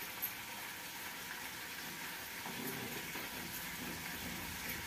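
A faint, steady simmering hiss from a pan of tadka syrup on the stove, with a few soft taps of a knife against a steel plate as soft besan dhokla is cut.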